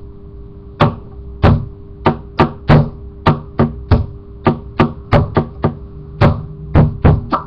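A run of about seventeen sharp percussive strikes in an uneven, beat-like rhythm, each a short hard knock, over a steady low hum.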